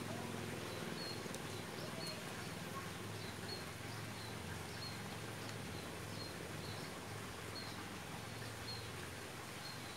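Outdoor ambience: a small animal's short, high chirp repeats about once or twice a second over a steady low hum.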